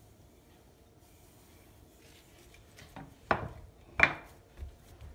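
Faint rubbing of a wooden rolling pin over the dough, then, from about three seconds in, a run of sharp pats roughly every half second as flat hands press and slap the slab of layered dough against the countertop.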